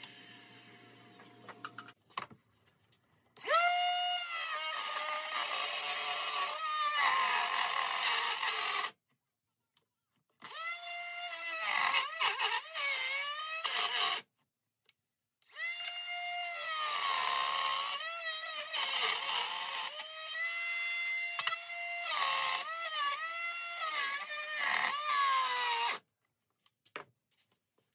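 Cordless trim router running in three stretches, a high motor whine that dips and recovers over and over as the bit cuts into wood, routing out a recess.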